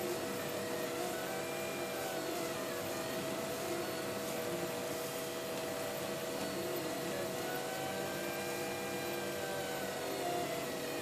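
Home-built dApA 1 3D printer printing: a steady whir and hum from its motors and fans, with whining tones that glide up and down in pitch as the print head moves.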